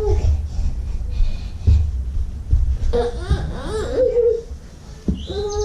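A toddler's wavering, whiny vocal sounds, rising and falling in pitch, start about three seconds in, over a steady low rumble.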